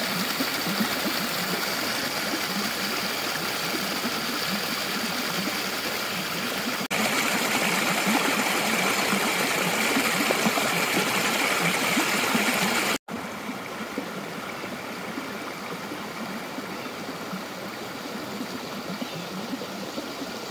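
Running water of a stream: a steady rushing, in three shots cut together. It jumps louder about seven seconds in and drops quieter about thirteen seconds in.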